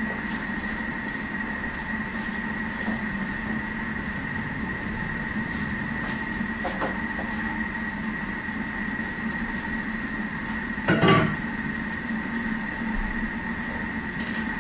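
Thermomix TM6 running steadily, its blade turning slowly in reverse to stir vegetables as they cook at 120 °C: a constant hum with a high tone. A short clatter about eleven seconds in.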